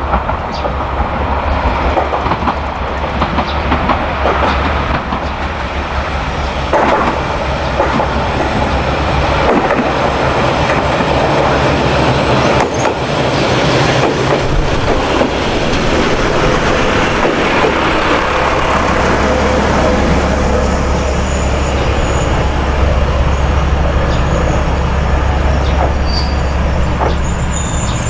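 Two-car diesel railcar train running on the line: a steady low engine drone with the rumble and knocks of wheels on rail.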